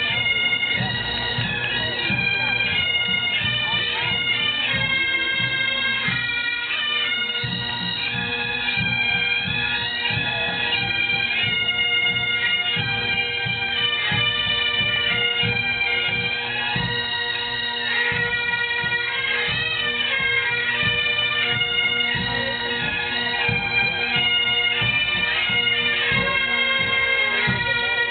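Massed pipe bands playing Great Highland bagpipes in unison: a steady drone under the stepping chanter melody.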